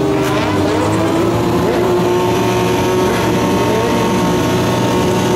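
Sport-bike engine running at steady high revs under held throttle while the rider pulls a wheelie, with short rises and falls in pitch.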